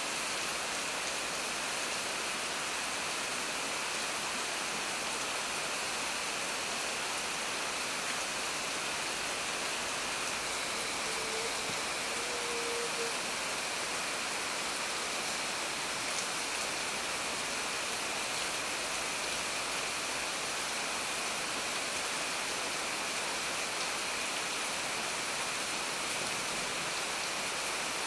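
Steady rain falling on dense tropical foliage, an even hiss with no break. A short faint note is heard once near the middle.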